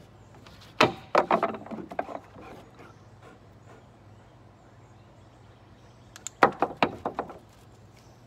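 A dog on a wooden deck, its claws and a wooden stick in its mouth knocking on the boards. There are two quick flurries of sharp clicks and knocks, about a second in and again around six and a half seconds in.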